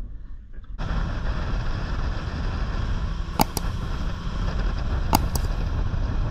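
Motorboat running at speed across open water: a steady rush of wind, engine and spray that starts suddenly about a second in. Over it come two pairs of sharp mouse-click sound effects from a subscribe-button animation.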